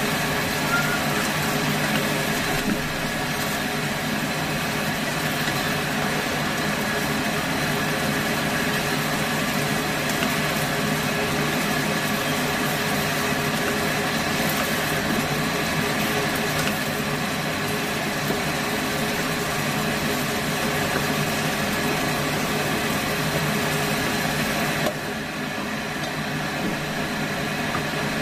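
A kitchen fan runs with a steady whirring hum over the sizzle of food cooking in a frying pan on an induction hob. A few seconds before the end, the hiss drops and the sound gets quieter.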